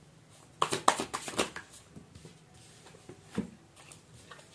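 Deck of tarot cards being shuffled by hand: a quick run of crisp card flutters and clicks lasting about a second, starting about half a second in, then a few faint taps of the cards later on.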